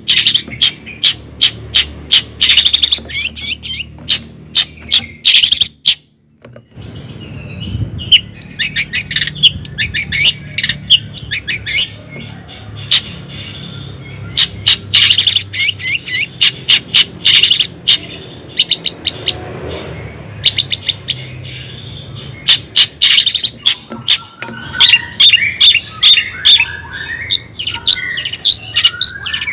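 Birds chirping and trilling loudly in quick, repeated short calls, with a brief break about six seconds in.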